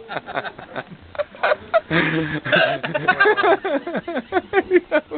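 A man hiccuping over and over, unable to stop: a rapid run of short vocal hiccups, several a second, each dropping in pitch, thickest in the middle.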